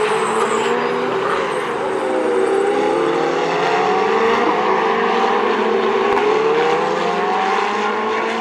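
Several Ferrari Challenge race cars' V8 engines running hard on track, their overlapping engine notes dipping and climbing in pitch as the cars slow for corners and accelerate away.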